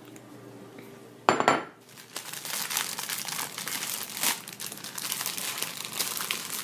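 A short knock about a second in, then plastic wrapping crinkling and crackling steadily as an instant ramen noodle packet is handled and opened.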